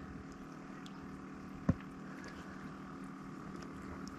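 Faint steady machine hum over low background noise, with one short knock about a second and a half in.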